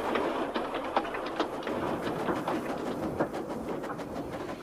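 A model Thomas the Tank Engine locomotive and its wagons running on model railway track: the motor whirs and the wheels click over the rail joints. It grows fainter as the train runs away round the curve.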